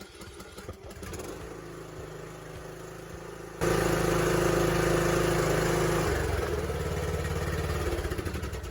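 Craftsman riding mower engine being cranked by its starter, now working on the newly replaced solenoid. About three and a half seconds in, it catches suddenly and runs loud and steady. A couple of seconds later it settles to a lower speed.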